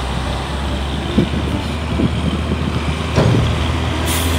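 Heavy dump trucks' diesel engines rumbling steadily as they drive past, with a brief hiss near the end.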